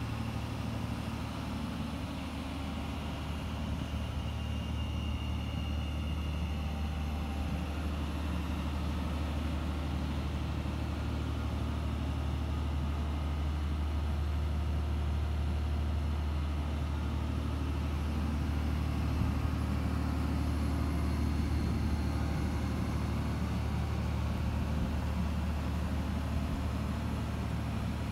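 Volvo diesel engine of a 275 kVA generator set running steadily inside its enclosed canopy: a continuous low hum with no change in speed.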